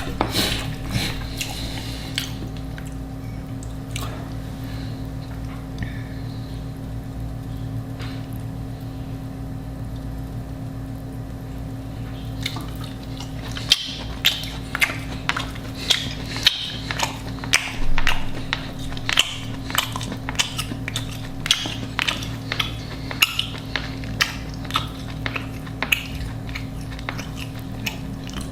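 Close-up chewing and biting of food: sparse at first, then crisp clicks and crunches come thick and fast from about halfway through. A steady low hum runs underneath.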